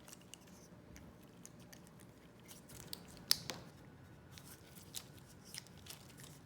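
Light scraping and small clicks of a cleaning tool being worked through a pistol barrel from the breech end, with one sharper click about three seconds in.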